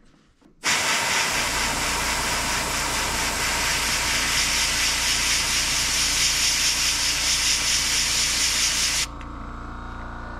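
Airbrush spraying paint onto a crankbait lure: a steady hiss of air starts about half a second in. About nine seconds in it drops to a quieter, humming hiss, then stops.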